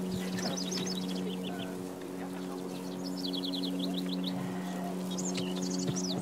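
A songbird singing a short rapid trill, repeated three times a couple of seconds apart, over a steady low hum.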